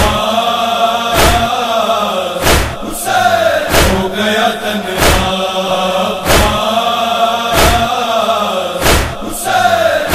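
A chorus of men's voices chanting a Muharram noha, with a heavy beat landing about every 1.3 seconds in time with the chant.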